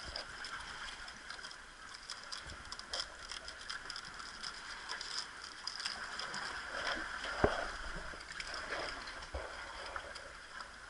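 Seawater washing against the rocks, a steady watery hiss, with scattered light clicks of a knife blade working into a sea urchin's shell. There is one sharp knock about seven and a half seconds in.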